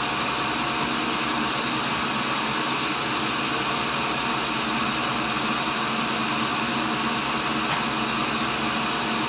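Cincinnati tool and cutter grinder running, its motor and grinding wheel spinning with a steady, even whir and hum.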